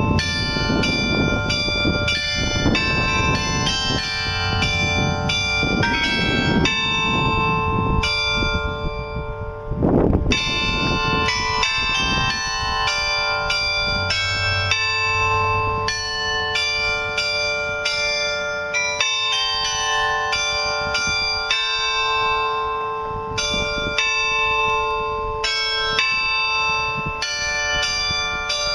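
Carillon bells of a glockenspiel clock tower playing a tune, one struck note after another at about two a second, each left ringing into the next. A brief rush of noise cuts across the bells about ten seconds in.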